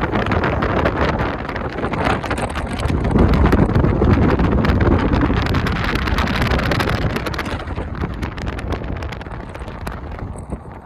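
Wind buffeting the microphone, a loud rumbling gust that is strongest about three to five seconds in and eases off toward the end.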